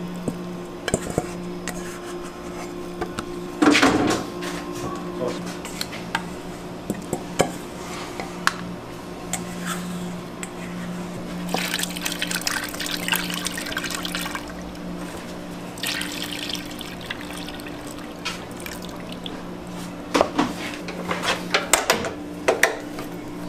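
Ingredients going into a stainless-steel dough-mixer bowl: scattered knocks and clinks with one loud knock early on, then milk poured from a carton as a hissing, splashing pour lasting a couple of seconds, then clicks and clatter near the end as the mixer's clear plastic lid is handled. A steady low hum runs underneath.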